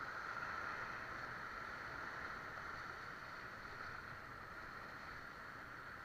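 Steady rush of river rapids around an inflatable raft drifting with paddles up, easing a little toward the end as the water calms.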